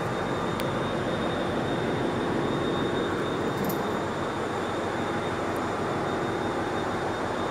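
Diesel power-plant generator sets running with a steady, loud drone, a thin high whine held over it.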